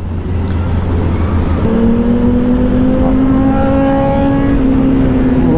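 Superbike engine running at high revs, its pitch climbing slightly, over a low steady rumble of wind and road; the engine note comes up about one and a half seconds in.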